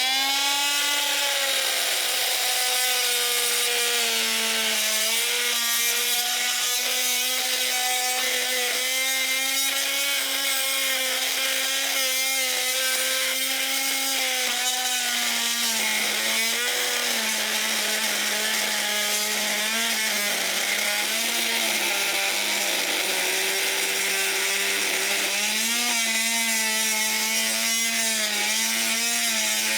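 Oscillating multi-tool running with a steady buzzing tone as its blade cuts thick steel plate, the pitch dipping and recovering repeatedly as the blade bites under load. The blade is not made for metal this thick.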